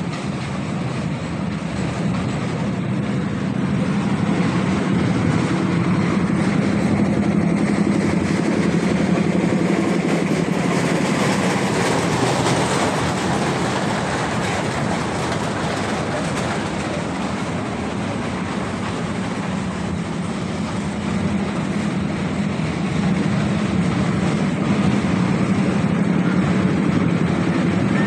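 Small amusement-park ride train running along its track: a steady low hum and noise of the running train, getting louder as it passes close about halfway through, then easing off and building again near the end.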